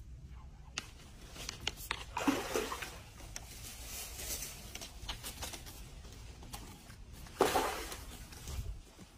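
Water splashing twice, about two seconds in and again near the end, as a hooked fish thrashes at the surface while being brought to a landing net. Scattered light clicks in between.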